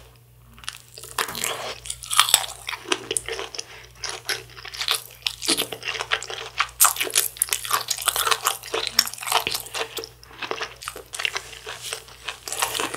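Close-miked biting and chewing of a kielbasa sausage: a dense run of small wet clicks and crackles from the mouth, coming in clusters with short pauses between.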